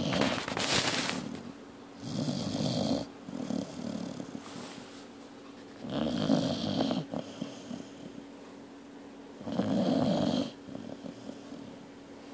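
Snoring in sleep: rough, rattling breaths about every three to four seconds, with quieter breathing in between.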